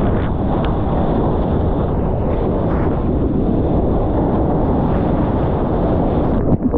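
Steady, loud rush of wind and water buffeting an action camera's microphone out on the surf. About six and a half seconds in it breaks up into choppy, uneven gusts and splashes.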